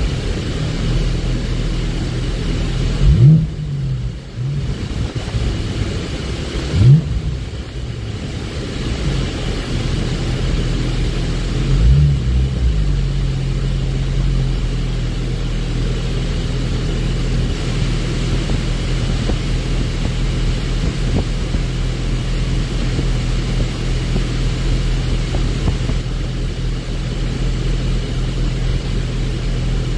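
Porsche GT4's flat-six engine running at low revs, with two quick throttle blips early on where the pitch jumps up and drops back, a smaller rev rise around twelve seconds in, then steady low running.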